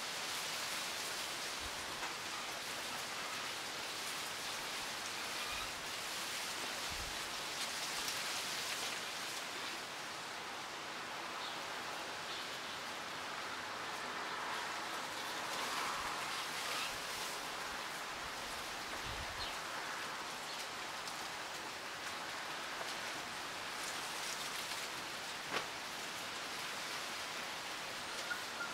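Wind blowing through trees and native bush, the leaves rustling in a steady breeze that swells and eases a little, with a few faint short ticks.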